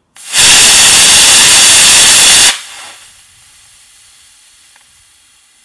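Estes C6-5 solid-fuel model rocket motor firing on a static test: a loud, steady rushing hiss of the thrust phase starts just after ignition and cuts off after about two and a half seconds, then drops to a faint hiss as the delay charge burns and puts out tracking smoke.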